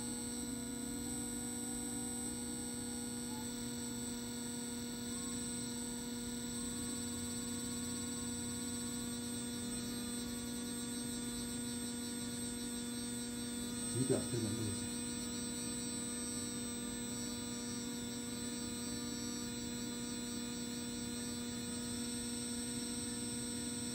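Rawsuns RSTM262-J EV drive system's electric motor and controller running, with a steady electrical hum and a faint whine that slowly rises in pitch as the motor speeds up under a light accelerator. A single short knock about fourteen seconds in.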